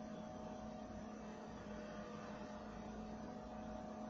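Steady faint hum with an even hiss underneath: background room tone.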